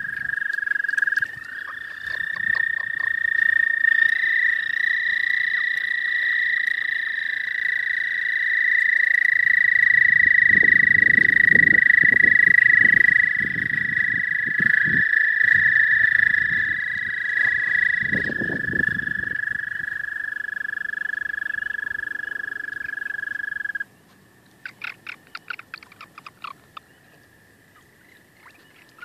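A chorus of toads, which the uploader suspects are American toads, giving long, steady, high trills. Several toads overlap at slightly different pitches. About 24 seconds in the trills stop abruptly, leaving a few short chirps, and trilling starts again near the end.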